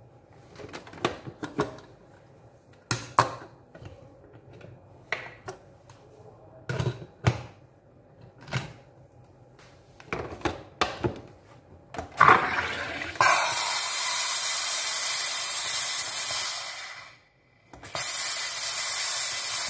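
A series of clicks and knocks as a plastic bottle is handled and fitted to a Drinkmate sparkling-water maker. Then the machine injects CO2 into the water with a loud hiss that lasts about four seconds, stops briefly, and starts again.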